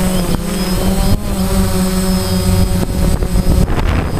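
DJI Phantom quadcopter's four motors and propellers whining steadily, heard from the camera mounted on the drone itself, the pitch shifting slightly as it manoeuvres. Near the end, rushing wind on the microphone takes over from the whine.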